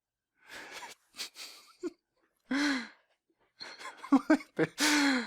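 A person's wordless vocal sounds: faint breaths and gasps, then short sighing or groaning voice sounds.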